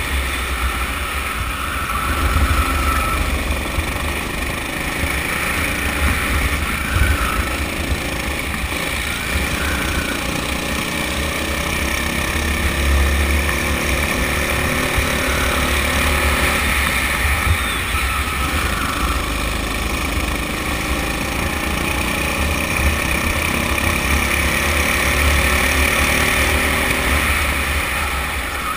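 Honda four-stroke rental go-kart engine running on a lap, its pitch repeatedly rising and falling as the driver accelerates and lifts through the corners. Heavy wind rumble on the microphone runs underneath.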